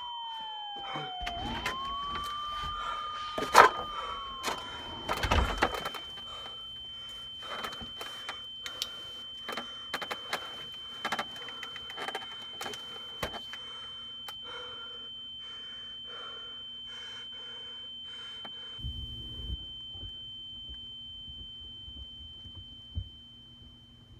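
A siren-like wail slides down and back up once in the first few seconds, with a loud knock about three and a half seconds in and a clatter near six seconds. A steady high ringing tone holds over a low hum, with scattered knocks and clicks through the middle.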